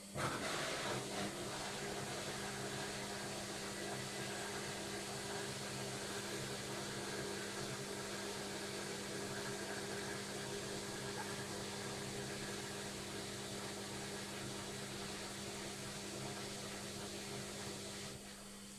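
Logik washing machine running: a steady mechanical noise with a low steady tone in it. It starts suddenly with a brief louder jolt and cuts off abruptly near the end.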